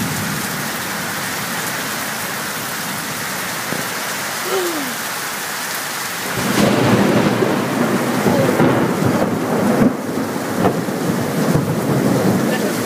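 Rain falling steadily during a thunderstorm. About six seconds in, a loud rumble of thunder rolls in and keeps rolling.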